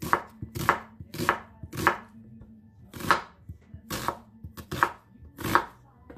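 Chef's knife slicing a raw white onion into wedges on a wooden cutting board: about eight separate cuts at an uneven pace, with a longer pause between two and three seconds in.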